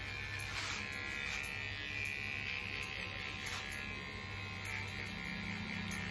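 Electric hair clipper buzzing steadily as its blades cut hair at the side of the head.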